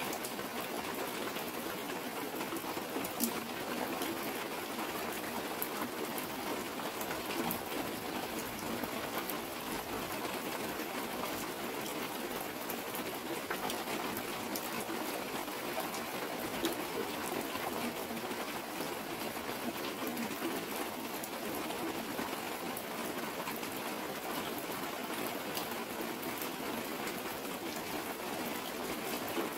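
Steady rain falling, an even hiss with scattered sharp drop taps, as rainwater hits and streams down a clear plastic sheet.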